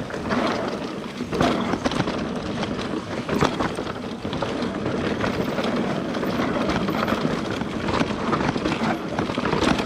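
Nukeproof Mega 275 mountain bike riding down a dirt single-track: tyres rumbling over dirt and stones, with many sharp rattles and knocks from the bike over the bumps.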